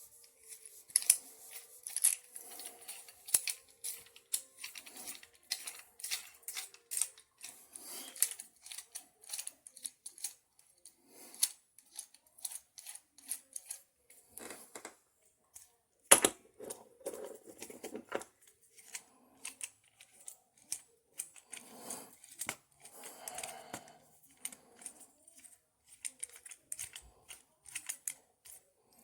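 Small clicks, scrapes and knocks of a Utebit C-clamp being handled and tightened onto an RC radio transmitter, with one sharper knock about sixteen seconds in.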